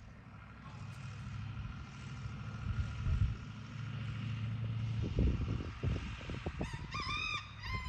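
A distant engine running steadily with a low hum, with some low rumbles midway. A rooster crows near the end.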